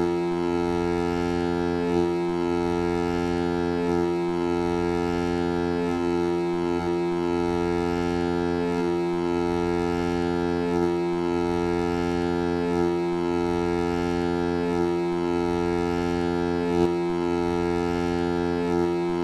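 Foghorn sound effect run through a vocoder: a sustained chord of stacked low horn tones that shifts slightly about every two seconds.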